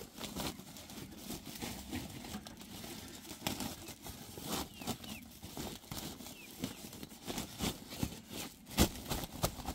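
Woven plastic sack rustling and crinkling as it is handled and folded over a plastic crate, with a run of irregular clicks and knocks. Two sharper knocks near the end are the loudest.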